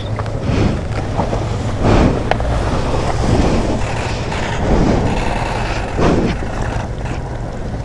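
Shallow stream water rushing over stones, with repeated splashing surges about every second or so and wind noise on the microphone.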